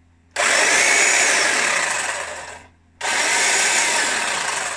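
Black & Decker GT350 corded electric hedge trimmer running with its blades moving freely in the air. It is switched on about a third of a second in and runs for just over two seconds before stopping. It is switched on again about three seconds in.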